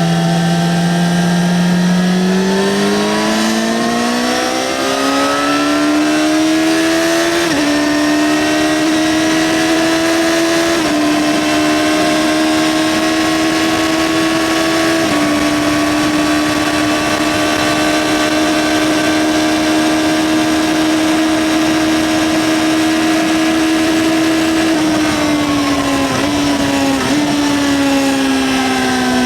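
Yamaha XJ6-N's 600 cc inline-four on its stock exhaust, pulling up through the gears. The engine note rises, dips briefly at two upshifts, and then holds steady at a cruise. Near the end the revs drop away, with a couple of short blips as it shifts down.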